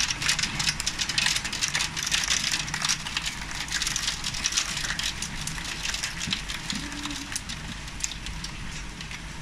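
Small hailstones mixed with rain pelting wooden deck boards: a dense crackle of many sharp ticks over a rain hiss that thins out toward the end.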